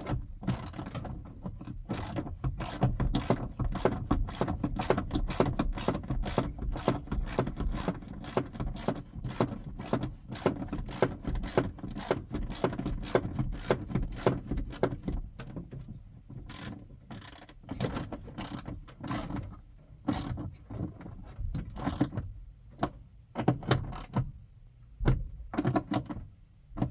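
Hand ratchet clicking steadily, about three clicks a second, as a bolt is run down into a threaded plate; after about sixteen seconds the clicks come in slower, irregular spurts as the bolt gets snug.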